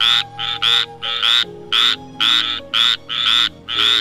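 Frog croaking: short calls repeated about twice a second, often in quick pairs.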